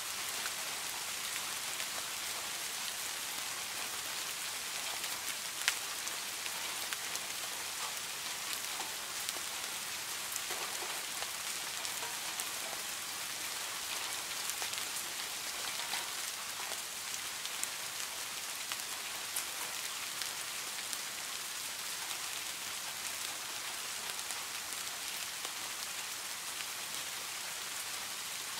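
Steady rain falling on the water of a garden pond: an even hiss with scattered individual drop plinks, and one sharper drop about six seconds in.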